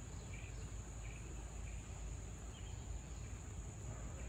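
Steady high-pitched insect chorus, with a low rumble underneath.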